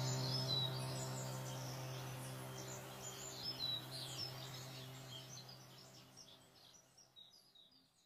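Birds chirping over a low, sustained musical tone, both fading out steadily to near silence near the end.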